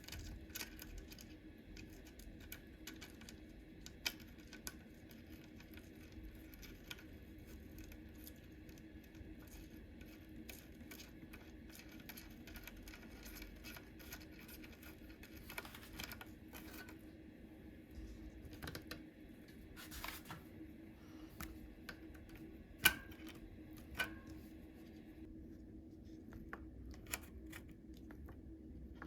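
Scattered small clicks, taps and scrapes of hand work on a bicycle rim brake, with a sharper click about 23 seconds in and another a second later, over a steady low hum.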